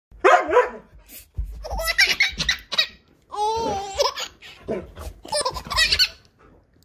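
A six-month-old baby laughing in repeated bursts of giggles and laughs.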